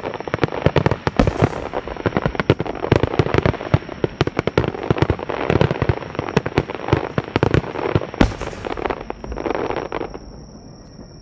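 Aerial fireworks shells and rapid-fire volleys bursting: dense overlapping bangs and pops, with two short hissing rushes of crackle, one about a second in and one about eight seconds in. The barrage falls away about ten seconds in.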